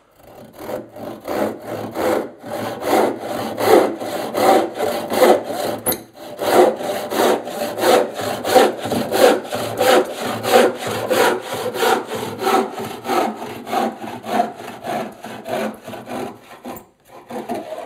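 Freshly sharpened 7-point crosscut handsaw sawing across the grain of a wooden board by hand, in steady rhythmic strokes that cut easily. There is a short break about six seconds in, and the sawing stops near the end.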